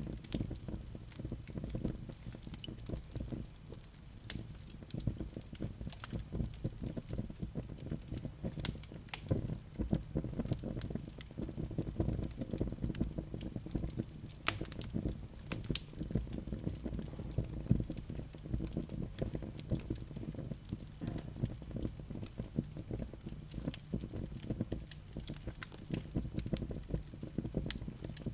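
Wood fire burning in a fireplace, crackling with many small pops and snaps over a low rumble of flames, with a few sharper snaps.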